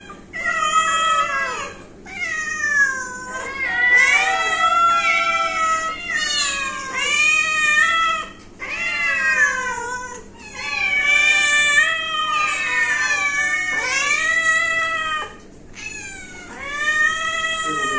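A group of domestic cats meowing at once, several overlapping calls almost without a break, with a few short pauses.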